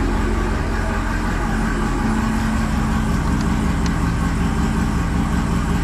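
Chevrolet Camaro ZL1's supercharged 6.2-litre LT4 V8 idling steadily.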